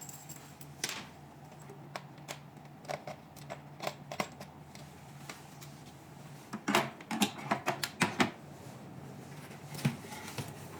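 Scattered sharp clicks and knocks of plastic parts being handled as the cavitation handle's connector is fitted to the body-sculpting machine, with a quick run of clicks about seven to eight seconds in.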